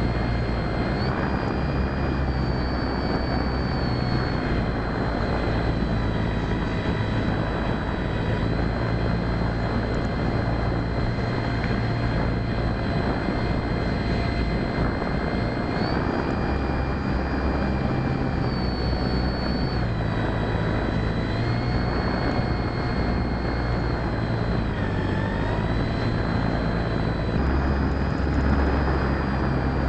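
A radio-controlled model airplane's motor and propeller, heard from a camera on board: a steady whine that steps up and down in pitch as the throttle changes, over heavy wind rush.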